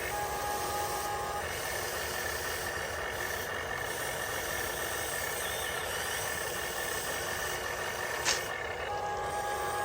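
Radio-controlled construction model machines running, their small electric motors and gears giving a steady whine with several held tones. A single sharp click about eight seconds in.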